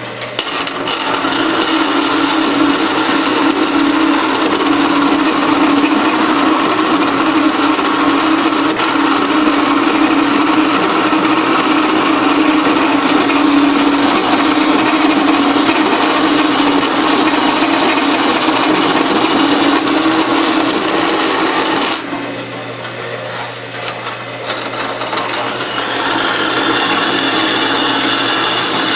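Metal-cutting bandsaw, converted from a woodworking saw, cutting aluminum angle with a freshly silver-soldered blade: a loud, steady rasping cut with a strong low hum under it. The blade is on the fine side for aluminum, so the cut goes slower than a coarser blade or more speed would allow. The cut ends about 22 seconds in and the saw runs on more quietly, getting louder again near the end.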